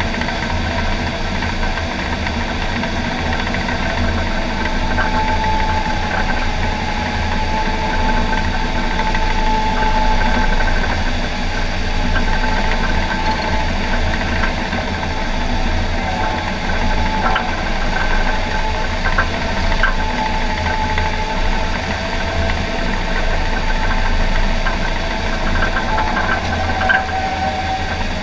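John Deere 750K crawler dozer's diesel engine running steadily under load as it pushes dirt, heard from inside the cab, with a faint whine that rises and falls slightly and a few light clanks in the second half.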